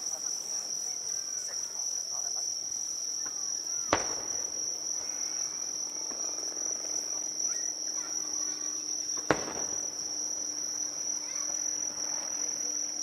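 Fireworks shells bursting: two sharp bangs, about four and nine seconds in. Between them runs a steady, high-pitched insect chirring.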